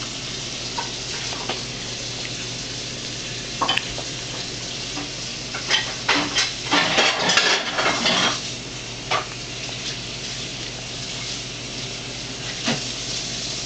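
A baby feeding herself soft, saucy food with her hands: wet smacking and squishing from her mouth and fingers, with small taps on the plastic high-chair tray, in short scattered bursts that are busiest around the middle.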